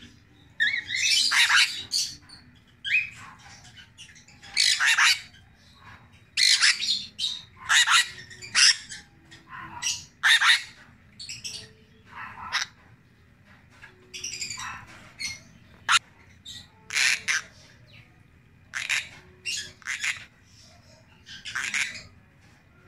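A St. Thomas conure (brown-throated conure) giving about twenty short, harsh squawks and chirps, one every second or so at uneven intervals.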